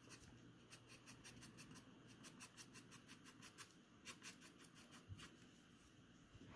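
Faint, quick strokes of a graphite pencil shading on drawing paper, about five or six short scratches a second, stopping a little after five seconds in.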